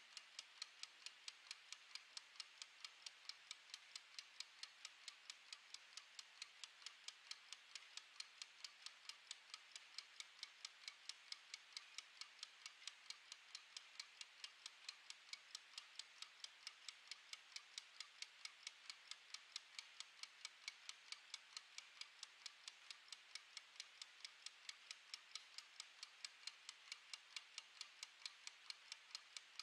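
Mechanical wind-up kitchen timer ticking as it runs down: a fast, even train of faint, light clicks from its clockwork escapement.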